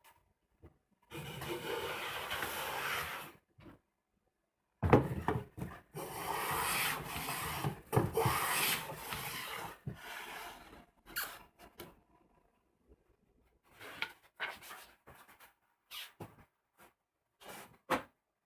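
A hand tool working elm in long scraping strokes, about two seconds each, with sharp knocks between strokes. Scattered light knocks and clicks of wood and tools follow in the second half.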